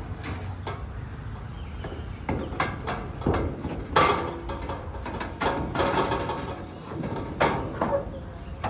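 Irregular knocks and clatter of pani puri being prepared at a street stall, about a dozen sharp strikes with brief ringing, loudest about four seconds in, over a steady low rumble of street noise.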